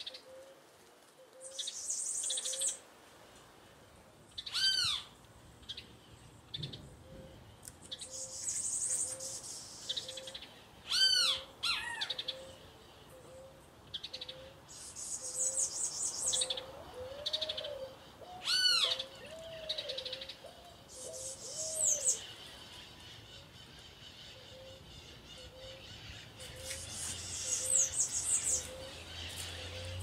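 Birds calling: a soft low hoot repeats about once a second, three loud arched whistled calls ring out, and bursts of high, rapid chirping come and go.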